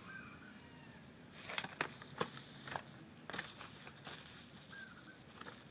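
Packaging rustling and crinkling as a parcel is unwrapped by hand, with a few sharp crackles about a second and a half in and denser rustling from about three seconds on.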